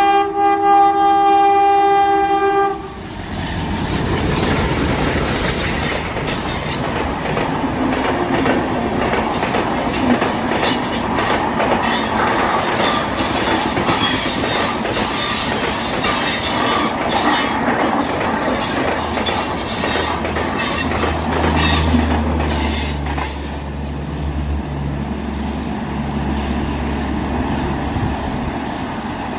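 An ALCO WDM3D diesel locomotive's horn sounding a chord, cutting off about three seconds in. Then a passenger train of LHB coaches runs past, wheels clattering over the rail joints, with a low steady hum added in the last several seconds.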